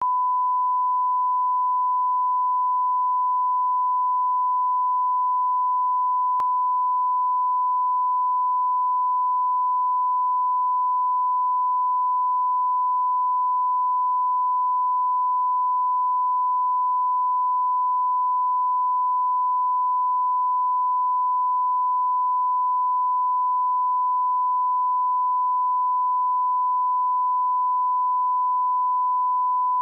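Steady 1 kHz line-up reference tone played with colour bars at the head of a broadcast programme master: one unbroken pure tone at constant level, used for setting audio levels.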